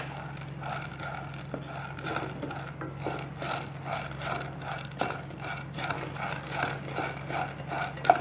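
Raw skin-on peanuts rattling and scraping across a nonstick pan as a plastic slotted spatula stirs them, in even strokes about two a second; they are dry-roasting in a spoonful of oil.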